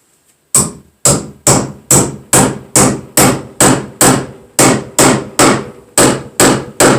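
A hammer driving nails to mount an electrical outlet box to a wall stud, with about fifteen steady strikes at roughly two a second, starting about half a second in.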